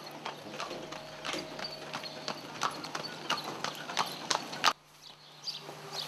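Horse's hooves clip-clopping as a horse-drawn carriage passes, at an even pace of about three hoof strikes a second. The sound cuts off abruptly near the end.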